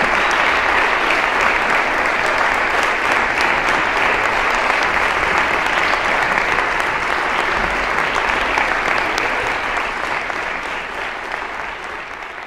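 Concert audience applauding steadily, a dense patter of many clapping hands, thinning and fading away over the last couple of seconds.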